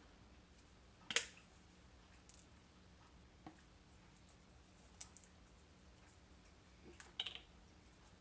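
A pill bottle being handled and its ribbed cap twisted open, making a sharp click about a second in, a few faint ticks, and a short cluster of clicks near the end.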